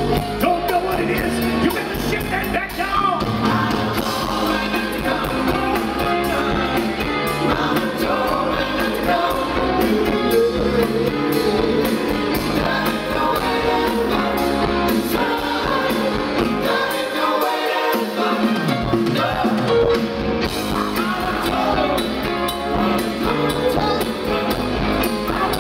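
Live rock band performing: several male singers over electric guitar, bass and drum kit, heard from the audience. The bass drops out briefly about two-thirds of the way through.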